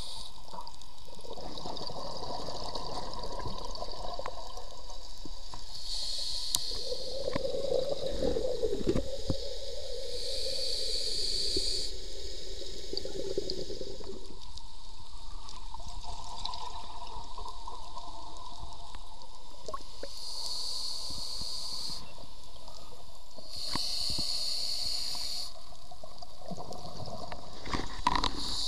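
Scuba regulator breathing heard underwater: a hissing inhale every few seconds, alternating with longer bubbling gurgles of exhaled air.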